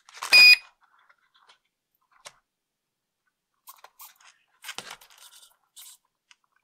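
A short, loud electronic beep from the little RC plane's electronics as its battery is plugged in and the flight controller powers up, followed a few seconds later by faint clicks and rustling as the servo leads and connectors are handled.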